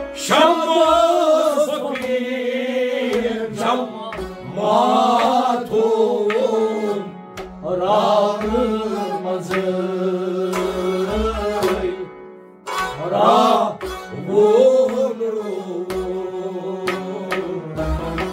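Kashmiri Sufi music: a man singing in long, bending phrases over a steady low drone, accompanied by hand strokes on a clay pot drum and a bowed string instrument.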